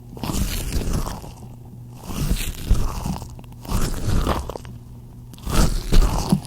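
Gloved hands rubbing and scrunching close to the microphone, in four swells of noise about a second and a half apart.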